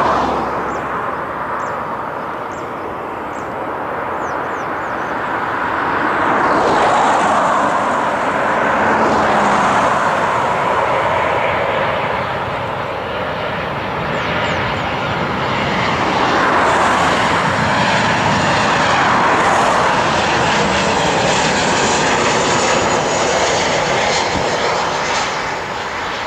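Jet engines of a twin-engine airliner on final approach, a loud continuous rushing roar that swells and eases several times and drops off a little near the end.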